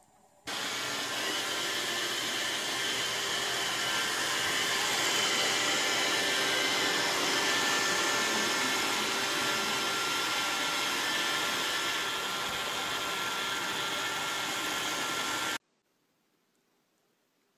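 Robot vacuum cleaner running, a steady whir with a faint whine. It starts abruptly about half a second in and cuts off suddenly about two seconds before the end.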